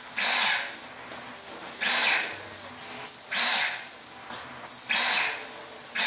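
Airless paint sprayer's gun hissing in short passes as paint is sprayed onto a window casing: five bursts, each under a second, about every one and a half seconds as the trigger is pulled and released.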